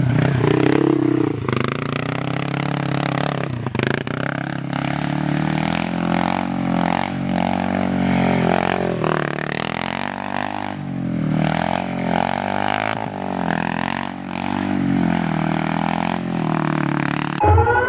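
Motorcycle engine of an off-road go-kart running hard, revving up and down over and over as the kart slides around on grass.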